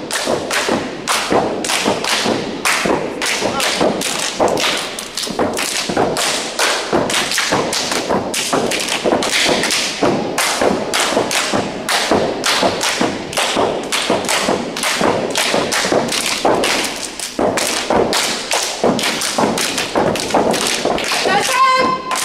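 A step team stepping in unison: sharp, rhythmic stomps on a carpeted floor mixed with hand slaps on the body, about three hits a second, keeping a steady beat.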